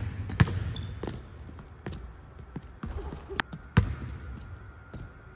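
Basketball bouncing on a hardwood court in a large, empty arena: a handful of sharp, irregularly spaced bounces, each followed by a hall echo.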